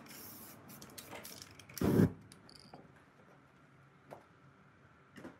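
A brief spray-can hiss at the start, then one loud thump about two seconds in, followed by a few light knocks of spray-painting work on the table.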